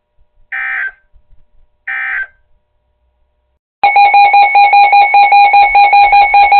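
Emergency Alert System audio: two short warbling digital data bursts, the end-of-message code closing a warning, then a loud alert tone beeping rapidly, about five beeps a second, for several seconds before the next warning.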